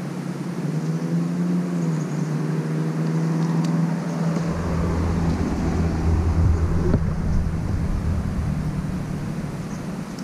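Motor vehicle engine running steadily, with a deeper rumble that comes in about four and a half seconds in and fades toward the end, like a vehicle passing.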